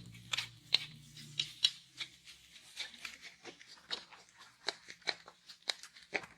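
Spatula scraping and clicking against a frying pan as rice is stir-fried, in irregular sharp strokes about two or three a second.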